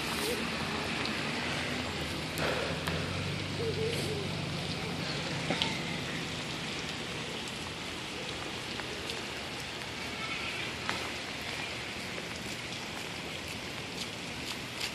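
Steady rain falling, an even hiss with a few scattered drip ticks. A low vehicle rumble, buses crossing a bridge, fades out over the first few seconds.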